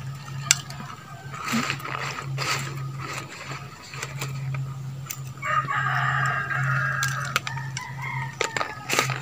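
A rooster crowing once, one long call that starts about five and a half seconds in, over a steady low hum and scattered small clicks.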